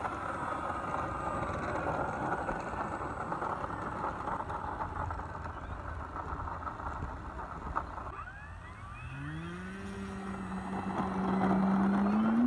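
Brushless electric motor and propeller of an FMS Pitts 1400mm RC biplane running as it taxis. About two-thirds of the way through, a rising whine sets in as the throttle comes up for the takeoff roll, then holds steady and grows louder.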